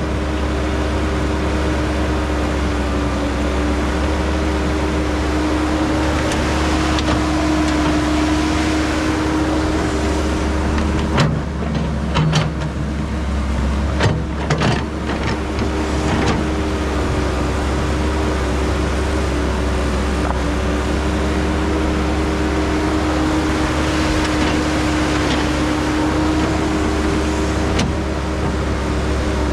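Caterpillar hydraulic excavator's diesel engine running steadily under digging load, with a steady hydraulic whine over a deep hum. A few short knocks come about halfway through as the bucket works the dirt.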